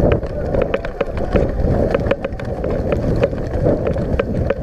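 Running footsteps on grass and dirt, with gear and rifle knocking and rattling at an irregular pace, over wind rumbling on the microphone of a camera carried by the runner.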